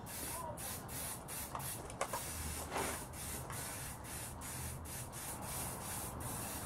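Aerosol spray paint can spraying in many short, quick bursts: a hiss that keeps cutting on and off.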